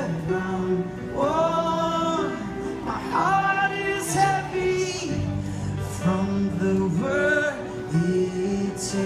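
Live worship band playing a song: a singer leads sung phrases over guitars and keyboard.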